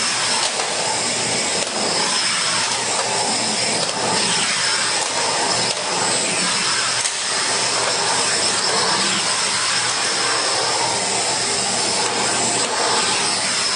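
Steam cleaner running steadily: a continuous hiss with a faint high whine.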